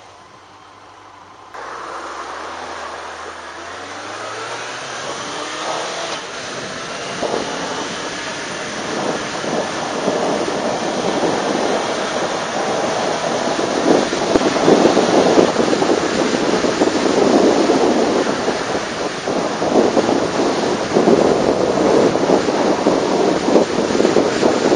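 Motorcycle pulling away and accelerating, its engine note rising in pitch about two seconds in, while a rush of wind grows steadily louder as speed builds. It is heard through an action camera's microphone covered with a foam windscreen.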